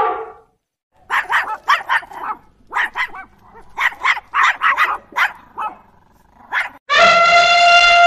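A small terrier barking: about fifteen short, sharp barks in quick clusters over some five seconds. Near the end an Asian elephant's long trumpet starts, and the tail of another elephant trumpet fades out at the very start.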